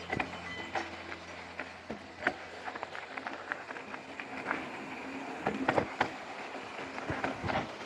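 Full-suspension mountain bike rolling down a rough, stony singletrail: irregular clicks and knocks as the bike rattles over rocks, over a steady rush of tyre noise.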